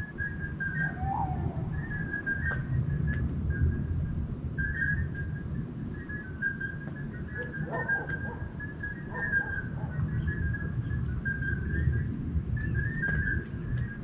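Night-time countryside chorus: many short, high, whistle-like chirps repeating irregularly and overlapping, over a low steady rumble. A single short call rises and falls about a second in.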